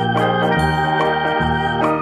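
Background music: an organ-like electronic keyboard tune over a bass line that changes note about every half second, with a steady beat.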